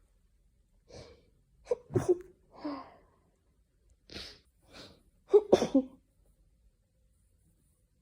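A person sneezing in a fit: short in-breaths, then sharp sneezes about two seconds in and a louder cluster of quick sneezes about five and a half seconds in. The sneezer hopes it is hay fever and not a cold.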